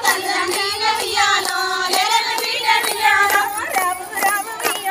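Women singing a Bathukamma folk song together, with rhythmic hand claps about twice a second keeping time.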